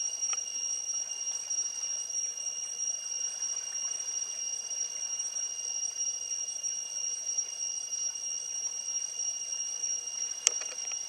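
Chorus of insects in the forest at dawn giving a steady, shrill, penetrating drone on two constant high pitches; a single sharp click about ten and a half seconds in.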